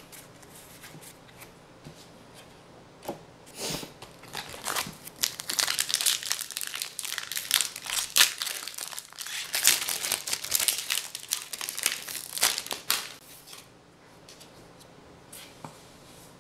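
Foil Magic: The Gathering booster pack wrapper crinkling and tearing as it is opened and the cards are pulled out. A dense run of sharp crackles starts about four seconds in and stops about thirteen seconds in.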